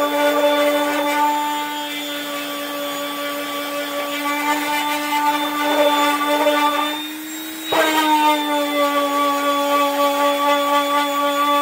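Electric random orbital sander running steadily on a painted steel VW Beetle decklid, with a constant motor whine and the rasp of the pad on the paint. About seven seconds in it quietens and its pitch rises slightly. A sharp knock follows, and then the whine settles back to its usual pitch.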